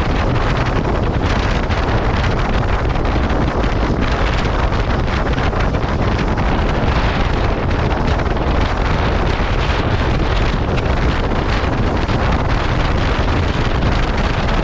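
Loud, steady wind noise buffeting the microphone of a motorcycle moving at riding speed, covering any engine sound.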